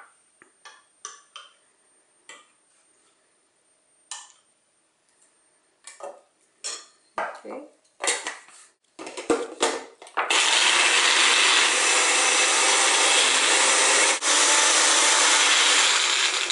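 Clicks and knocks of a plastic blender cup and its blade base being handled and screwed together, then a Magic Bullet blender motor running steadily for about six seconds, grinding mint leaves with a little yogurt into a paste. The run dips briefly about four seconds in.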